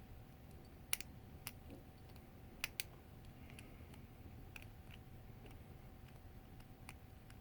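Lock picking: a few sharp, scattered metal clicks as a pick and tension wrench work the pins of a challenge lock, over a faint steady hum.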